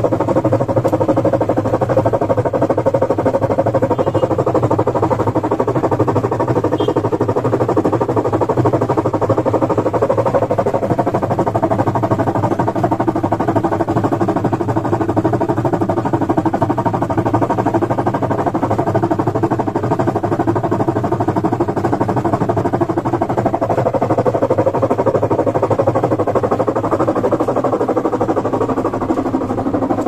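Top-load washing machine running with a loud, steady mechanical drone: the abnormal noise of a faulty machine.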